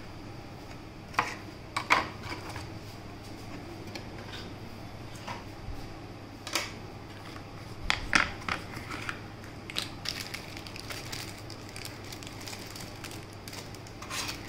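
Packaging being handled on a tabletop: scattered clicks, knocks and crinkles of plastic trays, cardboard inserts and a cable in a plastic bag being moved about. A faint steady hum runs underneath.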